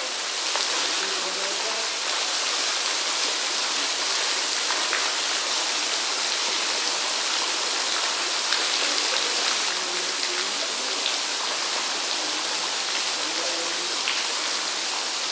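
Steady splashing rush of water falling into a koi pond.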